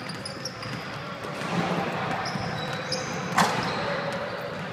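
Basketball sneakers squeaking in short bursts on a hardwood court as players run, with one loud thump about three and a half seconds in.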